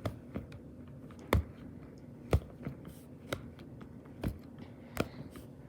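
A small Dimple Digits fidget toy being pressed on its quiet side: sharp single clicks of its dimple buttons popping, about one a second, with two or three noticeably louder than the rest.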